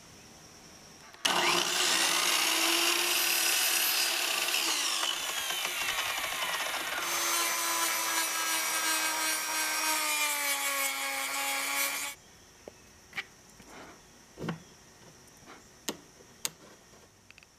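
Small handheld rotary tool with a sanding drum grinding a wooden plug: a high whine for about ten seconds, its pitch sagging in the later part. It then stops, leaving a few faint clicks.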